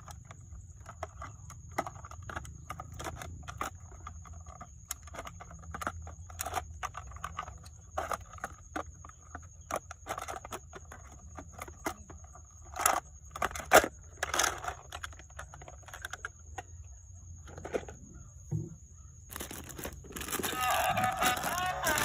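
Irregular clicks, scrapes and crinkles of toy cars and their packaging being handled, over a faint low hum and a thin steady high-pitched whine. Music with singing comes in near the end.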